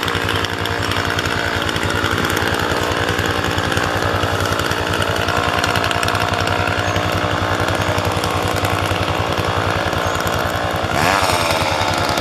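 Two-stroke chainsaw engine running steadily, with a brief change in pitch near the end.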